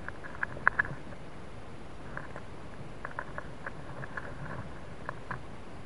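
A mouse shuffling and scratching inside a model rocket's payload tube: scattered light clicks, the loudest cluster within the first second, over the steady hiss of a key-chain camera's microphone.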